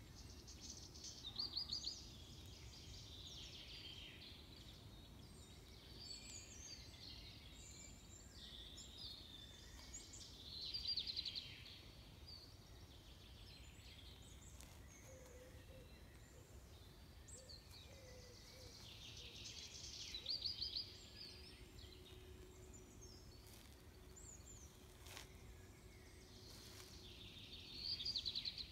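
Songbirds singing: one bird repeats a loud trilling song phrase four times, spaced several seconds apart, among other scattered chirps, over a steady low background rumble.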